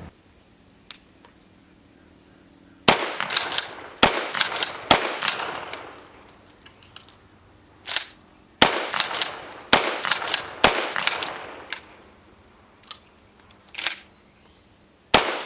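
Dickinson shotgun being fired, several sharp shots with short echoing tails in quick groups, with pauses between the groups.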